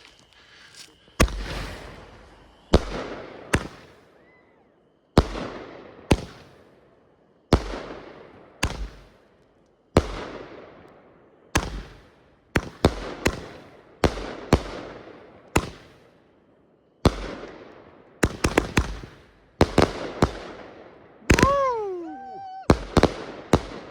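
A 16-shot consumer firework cake firing its shots in succession: each shot is a sharp bang followed by a fading hiss from the silver willow effects. The shots come every one to two seconds at first, then faster in quick clusters near the end for the finale.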